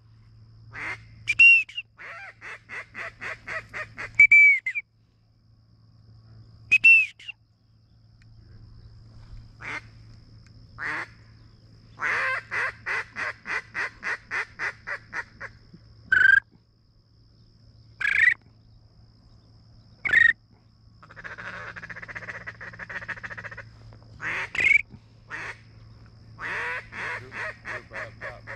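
Duck calls blown at a flock overhead: several loud runs of quacks at about four or five a second, short single whistle notes in between, and a fast chattering run a little after the middle.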